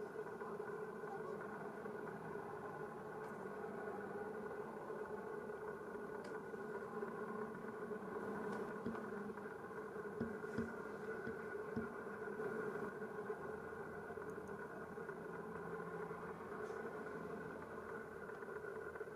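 Steady engine hum with a few faint clicks.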